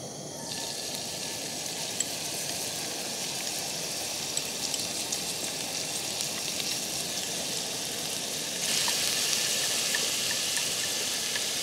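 Minced garlic sizzling in hot olive oil in a steel frying pan, stirred with chopsticks; the sizzle gets louder about nine seconds in.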